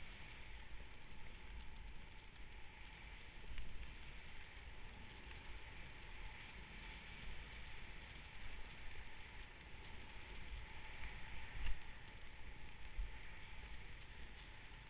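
Snowboard sliding through powder snow, a steady hiss, with wind buffeting the body-mounted camera's microphone in gusty low rumbles. There is one louder bump about three-quarters of the way through.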